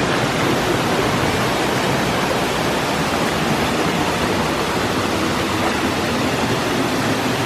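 Waterfall cascades in a river gorge, falling water rushing in a steady, loud, unbroken noise.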